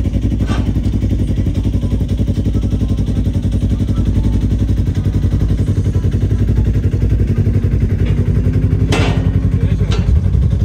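Off-road vehicle engine running close by, a steady rapid pulsing with a knock about half a second in and a louder clatter near the end.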